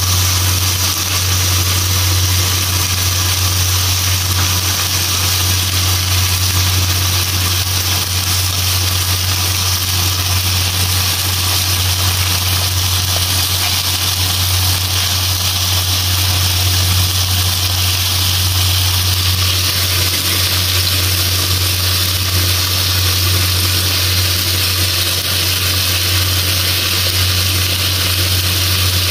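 Marinated chicken pieces sizzling as they brown in a nonstick wok, with a steady low hum underneath.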